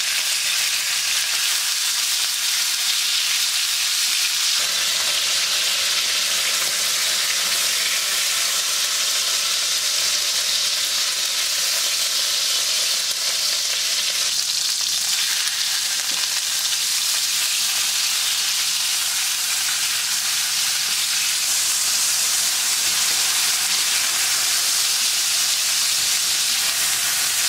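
Strips of venison frying in very hot olive oil in a wok: a steady sizzle, the meat searing and browning.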